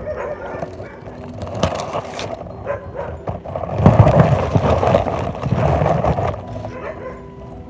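Dogs barking again and again, with a louder stretch of noise from about four to six seconds in.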